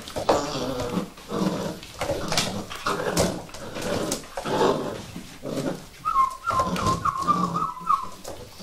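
A litter of Vizsla puppies whimpering and yipping over one another, with scuffling in between. About six seconds in, one puppy gives a quick run of short, high squeals.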